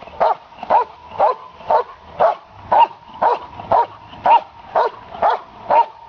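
Dog barking steadily at a helper in a blind, about two barks a second, evenly paced: the bark-and-hold of Schutzhund protection work.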